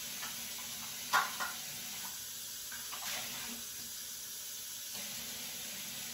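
Water running from a kitchen tap, with two sharp knocks a little over a second in.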